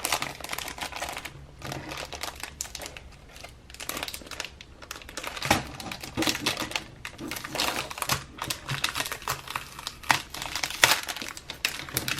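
Paper and plastic packaging crinkling and rustling in hand as a mail package is unwrapped, with many irregular light clicks and taps.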